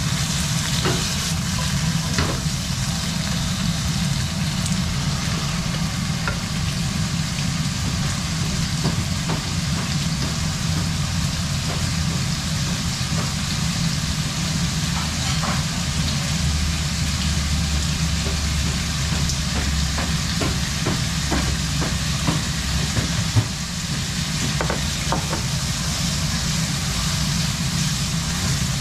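Diced meat sizzling as it fries in a nonstick frying pan, stirred with long wooden cooking chopsticks that click and scrape against the pan now and then. A steady low hum runs underneath.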